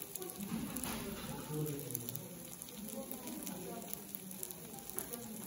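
Fried rice topped with cheese sizzling in a hot pan on a tabletop burner, with small crackles, under indistinct chatter of voices.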